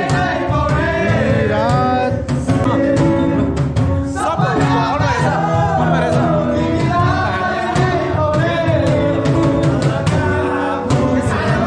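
A man singing, accompanied by a strummed guitar.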